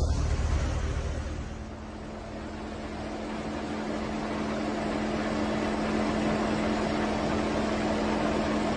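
An engine running with a steady hum under a rushing noise. The rush dips briefly, then grows louder over several seconds.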